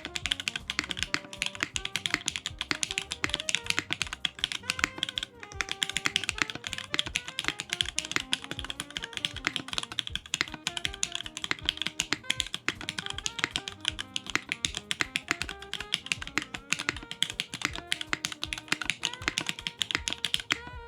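Fast, continuous typing on a Keycult 2/65 mechanical keyboard with lubed and filmed Cherry MX Black Hyperglide linear switches, a carbon fibre plate, no foam and GMK keycaps, giving a dense run of keystrokes. Background music plays underneath.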